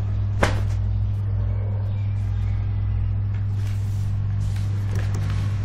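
Steady low electrical hum on the recording, with a single sharp click about half a second in.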